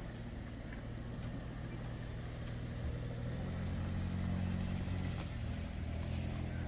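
A motor vehicle's engine running steadily, a low even hum that grows a little louder about three and a half seconds in.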